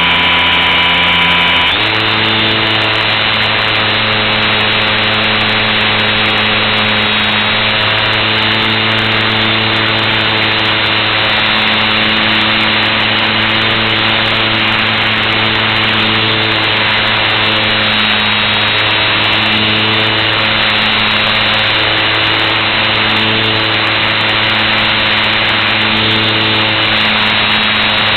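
Electric motor and propeller of a HobbyZone Super Cub LP radio-controlled plane in flight, heard close from an onboard camera with wind rush: a steady drone that steps up slightly in pitch about two seconds in as the motor speeds up.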